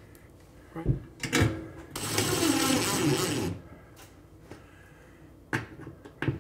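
DeWalt cordless drill driving a screw through a metal mounting flange into the ceiling. The drill runs once for about a second and a half in the middle, with a few clicks and taps of the bit on the screw before and after.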